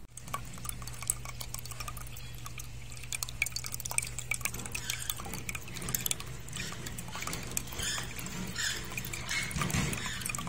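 Water from a small fountain pump's outlet pipe gushing and splashing into a basin of water, a busy patter of splashes and drips that grows denser after about four seconds. A low steady hum runs underneath, strongest in the first half.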